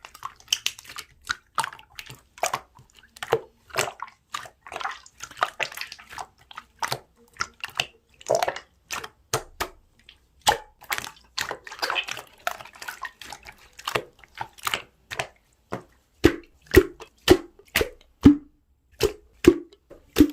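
Hands working pearl slime, with rapid wet clicking and popping squishes. In the last few seconds it settles into evenly spaced louder pops, about one every half second or so, as the slime is pressed or pulled in a steady rhythm.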